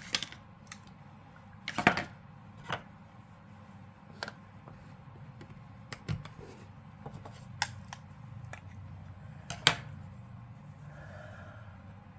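Scattered sharp clicks and taps from handling a plastic powder-blush compact, about nine in all at uneven intervals. The loudest come about two seconds in and near ten seconds.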